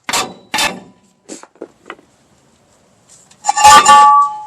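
Rear brake drum of a pickup being knocked loose and pulled off: two hard knocks, a few lighter taps, then near the end a loud metal clatter as the drum comes free, ringing on with a clear tone that fades.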